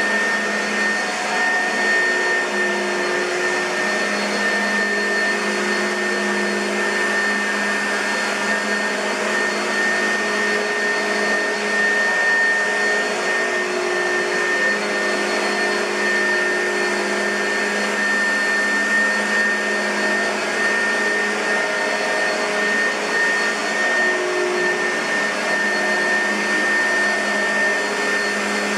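2006 Oreck XL2 bagged upright vacuum cleaner running steadily: an even motor rush with a constant high-pitched whine and a low hum underneath.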